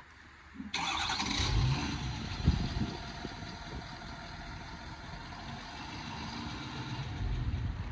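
Ford 6.7 L Power Stroke V8 turbo-diesel engine started by the crane's remote control: it starts suddenly under a second in, cranks and catches, then settles into a steady idle.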